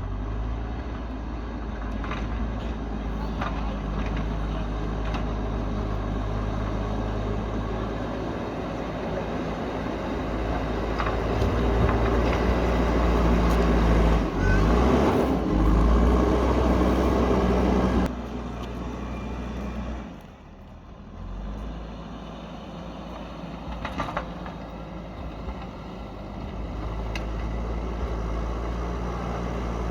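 Heavy diesel engine of an earthmoving machine working, running louder under load for several seconds in the middle, easing off briefly about two-thirds through, then picking up again. A few sharp metallic clanks come through over the engine.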